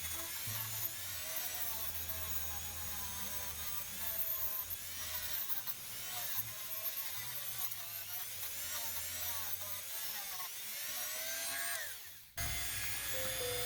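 Small high-speed power tool motor whining, its pitch repeatedly dipping and rising, over background music with a bass line. The tool stops about twelve seconds in, and only the music goes on.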